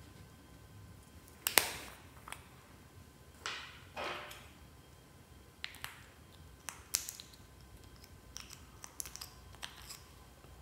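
Slime being kneaded and pressed by hand, giving sharp pops and crackles. The loudest pop comes about a second and a half in, two longer squishes follow around three and a half and four seconds in, and smaller clicks are scattered after.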